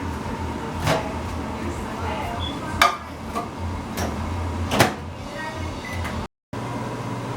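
Microwave oven being shut and started: four sharp clicks and knocks from the door and controls over a steady electrical hum. After a short break the hum carries on as the oven runs.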